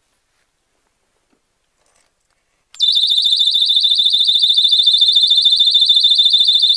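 Small handheld alarm starting suddenly about three seconds in and sounding a loud, shrill, rapidly pulsing high-pitched tone, measured at about 105 decibels.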